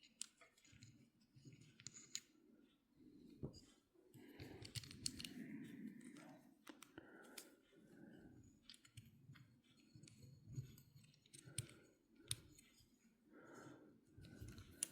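Faint, scattered clicks and soft rustling of small metal parts of an Abumatic 150 spincast fishing reel being handled and fitted together.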